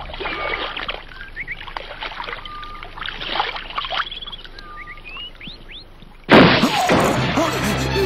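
Jungle soundtrack of many short, rising bird chirps and whistles over calm water. About six seconds in, a sudden loud rush of noise cuts in and keeps going.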